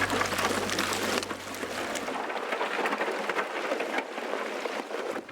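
Water rushing and splashing along a sailing yacht's hull as it moves, with many small crackles and ticks through it. A low steady hum fades out about two seconds in.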